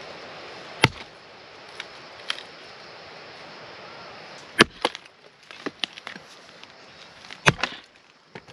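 Firewood being split by hand with a blade: three sharp chopping blows a few seconds apart, the middle one followed at once by a second, lighter hit, with a few smaller knocks between.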